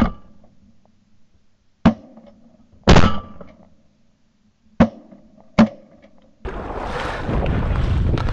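Shotgun shots over open water: four sharp reports, the loudest and longest-ringing one about three seconds in. About six seconds in, a steady rush of wind and water noise begins.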